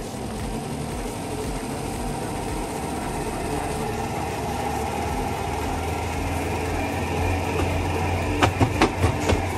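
Spin-dry tub of an LG WP-1650ROT twin-tub washing machine spinning up with a steady, building hum. Near the end a few sharp knocks come in quick succession as the worn, off-centre tub starts slapping against the housing.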